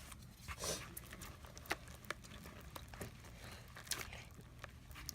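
Homemade slime being mixed and handled: faint, irregular small clicks and soft squishes, with two short hissy sounds, one about a second in and one near the end.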